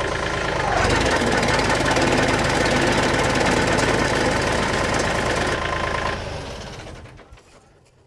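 Gas-engine Woodland Mills wood chipper running with its lid open to blow out a clog of green cedar and holly. It speeds up about a second in, then is shut off near the end and spins down to quiet.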